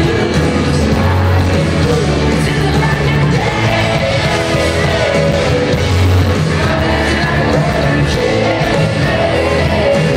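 Pop-rock band playing live, heard through a phone recording made in the audience: amplified guitars, drums and sung vocals, steady and loud, with some yelling from the crowd.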